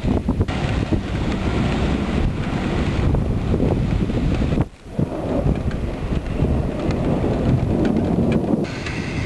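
Thunderstorm outdoors: wind buffeting the microphone and rain falling, over a heavy low rumble. The sound cuts out for a moment about halfway through.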